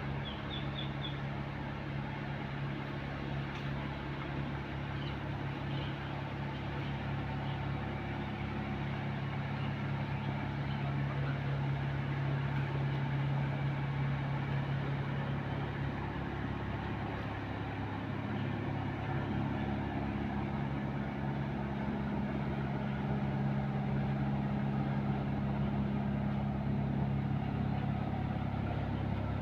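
An engine running steadily, its pitch dipping and shifting slightly about two-thirds of the way through.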